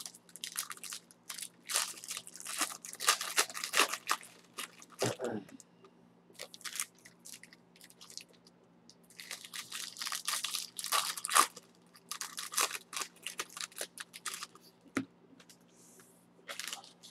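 Plastic wrappers of trading card packs being torn open and crinkled in two long crackly spells, with cards handled and squared into a stack in between. A faint steady hum runs underneath.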